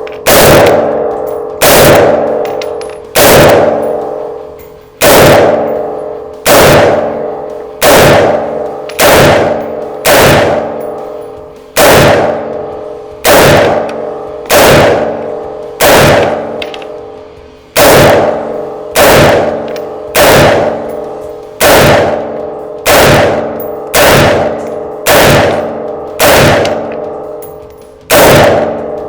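Semi-automatic rifle fired shot after shot through a 30-round magazine, about two dozen shots at roughly one a second, each leaving a ringing tail.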